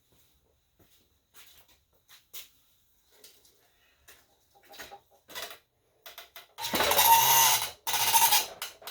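A few light clicks and knocks from a metal folding miter saw stand being handled, then about two thirds of the way in a loud grinding scrape in two pushes, a second or so each, as the stand is moved while catching on something. The stand is resting on its height-adjustment knob rather than its wheels.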